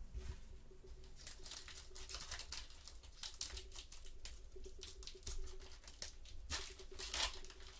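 Stack of baseball cards being handled by gloved hands: cards slid, flicked and tapped together in a run of light, quick clicks and rustles. A faint steady hum runs underneath.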